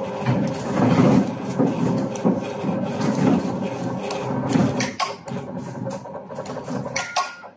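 GW 9751 bobbin transformer coil winding machine running, winding thick enamelled copper wire onto a bobbin: a pulsing mechanical hum with a clatter of quick clicks, which grows more clicky in the second half and cuts off suddenly near the end.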